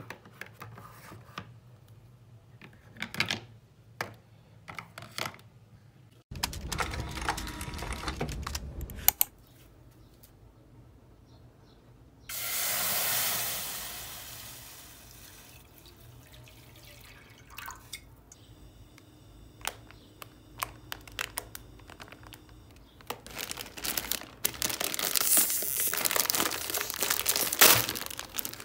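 Small clicks and taps as pens are handled, then a low rumble with knocks for about three seconds. About twelve seconds in, water pours from a glass bottle into a stainless steel frying pan, starting suddenly and fading off. Near the end comes loud crinkling and tearing as a plastic instant-noodle packet is ripped open.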